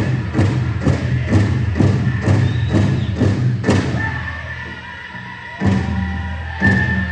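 Powwow big drum struck in a fast, even beat, about two strokes a second, under a group of singers. About four seconds in the drumming stops; a second and a half later it returns as single hard strokes about a second apart.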